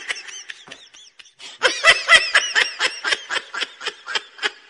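A person laughing in quick, high-pitched ha-ha bursts, about five a second, with a short lull about a second in before a longer run of laughter.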